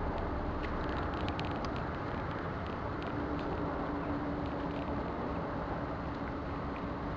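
Steady outdoor background rumble and hiss, with a faint low hum through most of it and a few light clicks in the first couple of seconds.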